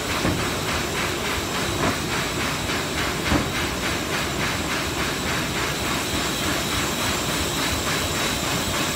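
High-speed cardboard laminating machine running: a steady mechanical hiss with a fast, even clatter as sheets feed through, and two louder knocks about two and three and a half seconds in.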